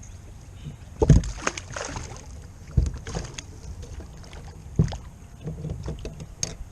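Knocks and clatter on a sit-on-top fishing kayak: three louder thumps about two seconds apart, with lighter clicks between them, over a low steady rumble of wind and water.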